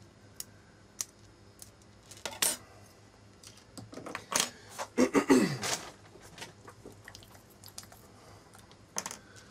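Small metal parts of a Cold Steel Ti-Lite folding knife (screws, steel liners, handle scales) clinking and clattering on a wooden table as the knife is taken apart. Scattered single clicks, with a louder run of clatter about four to six seconds in.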